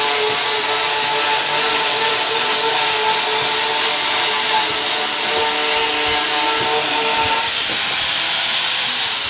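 Electric angle grinder with an orange polishing pad running steadily against a stainless steel plate, a high motor whine over a loud hiss; the whine fades and the grinder starts winding down near the end.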